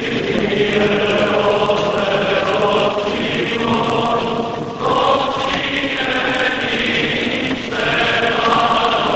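Choir chanting Greek Orthodox wedding hymns in held, sustained notes that move to new chords every few seconds, heard through a thin old film soundtrack.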